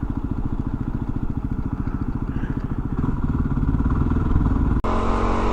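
Yamaha WR250R's single-cylinder engine running at low revs, its firing pulses evenly spaced. The revs pick up slightly about three seconds in, and near the end the sound changes abruptly to a steadier note.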